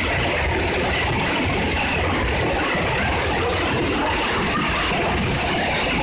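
Waterfall rushing, a steady, even wash of falling water.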